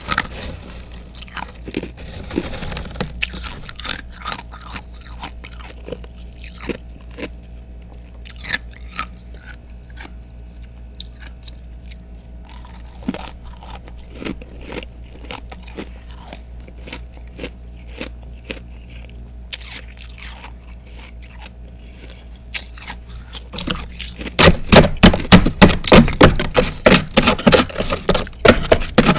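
A person chewing and crunching freezer frost and chunks of ice close to the microphone. It starts as scattered small crackles and crunches, then turns into loud, rapid crunching near the end.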